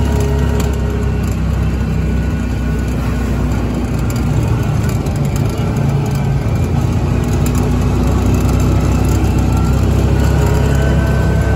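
Side-by-side UTV's engine running at a steady, moderate pace on a dirt trail, heard from inside the open cab as a low drone, its pitch shifting slightly with the throttle.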